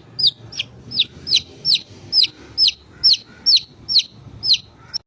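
A bird calling over and over: a short, high note sliding downward, about a dozen times at a little more than two a second.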